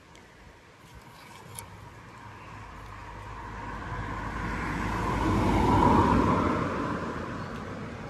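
A road vehicle passing by, swelling steadily to its loudest about six seconds in and then fading away.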